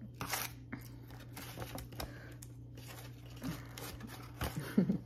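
Close-miked eating sounds of a cinnamon roll: chewing with small crinkling, crackling noises and scattered clicks, and a short pitched sound near the end as the loudest moment.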